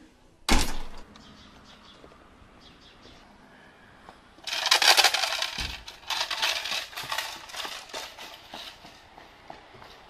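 A front door slams shut about half a second in. From about four and a half seconds on, a collection tin with coins inside is shaken hard, a loud, harsh rattling that comes and goes.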